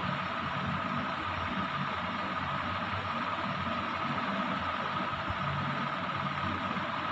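Steady machine hum with a constant high whine running through it, even and unchanging.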